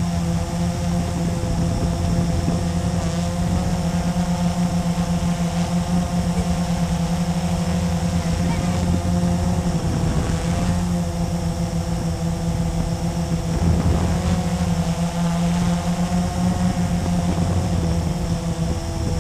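Blade 350QX quadcopter's electric motors and propellers humming steadily in flight, heard up close from the camera mounted on it, the pitch wavering slightly as it manoeuvres.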